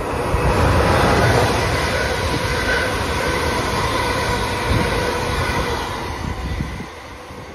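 Class 380 electric multiple unit passing along the line, a rush of wheel and running noise with faint steady tones in it. It builds quickly, is loudest about a second in, and fades near the end.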